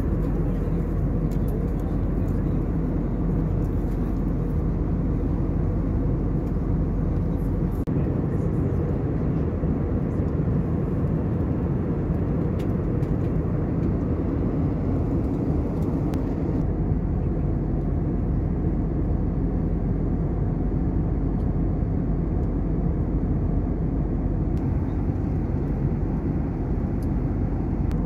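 Steady cabin drone of an Airbus A321neo in cruise: engine and airflow noise heard from inside the cabin, even and low-pitched throughout.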